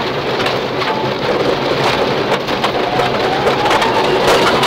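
Subaru Impreza rally car heard from inside the cabin at speed on gravel: its flat-four engine runs under load beneath a dense, steady clatter of gravel and stones thrown against the underbody and wheel arches, with many small impacts.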